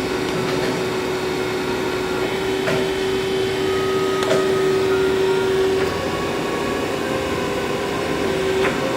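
Brown & Sharpe 818 Micromaster surface grinder running with a steady mechanical hum, with a few light clicks.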